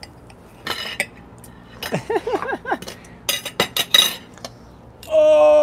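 Cutlery clinking against a plate while a bite of food is taken: a few sharp clinks about a second in, then a quick cluster of them around three to four seconds in.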